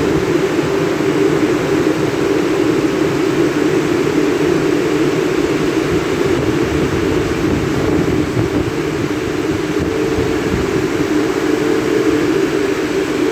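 Drying blowers of a Christ tunnel car wash running at full blast over the car: a loud, steady rush of air.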